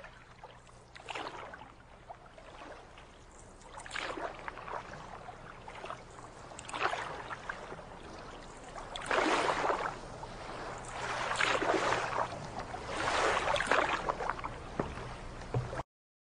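Water swishing and splashing in repeated swells every two or three seconds, as of a small boat moving through water, louder in the second half, over a faint steady low hum; it cuts off abruptly near the end.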